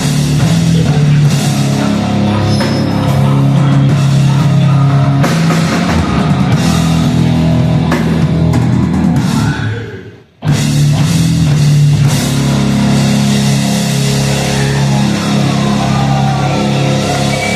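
Heavy rock band playing live, with guitars and a drum kit. The whole band stops dead for a split second about ten seconds in, then crashes back in together.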